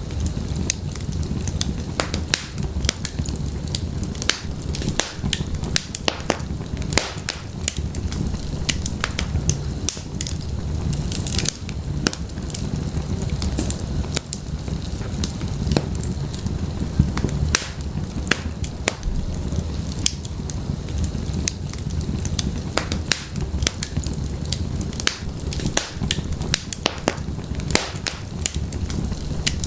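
Wood fire burning in an open fireplace: firewood crackling and popping in irregular sharp snaps over the steady low rush of the flames.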